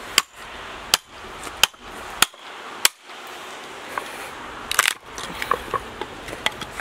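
A short-handled sledge hammer striking a chisel driven into an old wooden log, five sharp strikes about two-thirds of a second apart, followed about five seconds in by the wood cracking and splintering and a few lighter knocks. The log is being split apart to free a spike driven into it.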